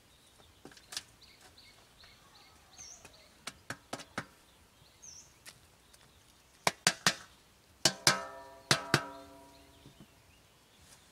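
Cleaver blade knocking against an upturned metal drum: a cluster of sharp metallic clanks about two-thirds of the way through, one of them ringing on briefly with several tones. Before that, a few lighter clicks of the blade working the soil at the drum's base.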